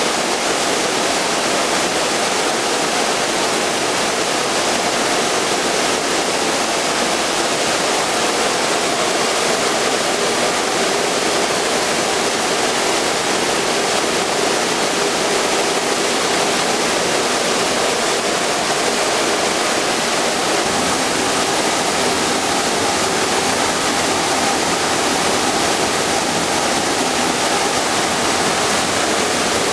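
Steady rushing noise of industrial equipment, with a faint hum in the middle range.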